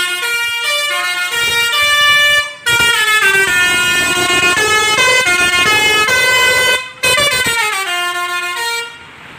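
Basuri musical air horn on a bus playing a tune: a run of distinct stepped horn notes in three phrases, with short breaks about two and a half and seven seconds in.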